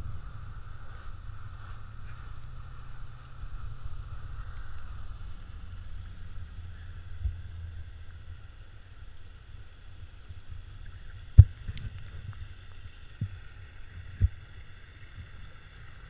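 Ski boat's engine running slowly and steadily as the boat idles back toward the skier, with water sloshing close to the microphone. Two sharp knocks come in the second half.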